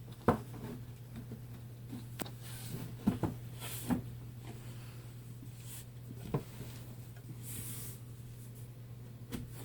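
Wooden drawer pieces being handled and fitted: a few scattered knocks, the sharpest just after the start, and short scraping rustles as the drawer's bottom panel is slid into its groove.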